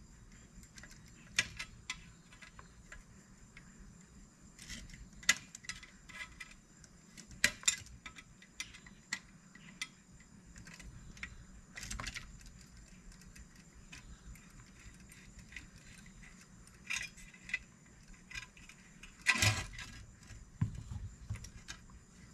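Scattered small metallic clicks and taps at irregular intervals, with a louder clatter near the end: screws and metal parts being handled with a screwdriver while the motor and reversing switch of an old Lionel toy train locomotive are taken apart.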